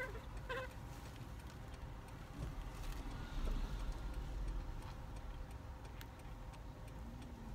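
Car-cabin engine and road rumble with a steady ticking like a turn-signal indicator; the rumble swells around the middle. A baby monkey gives two short, falling squeaks right at the start.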